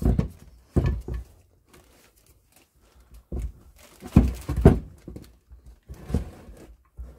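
Irregular dull knocks and clunks from a Land Rover Series gearbox casing and its main shaft being worked and shifted on the workbench, the shaft stuck in its bearing and refusing to come out. There are about seven knocks, with a quiet gap of a second or two early on.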